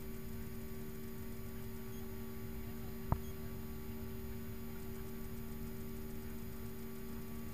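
Steady airliner cabin noise in the climb after take-off: a low rumble with a constant engine hum. A single sharp click about three seconds in.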